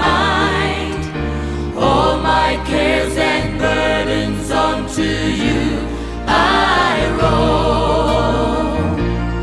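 Gospel worship song: sung vocals holding long, wavering notes over a keyboard and a steady bass line.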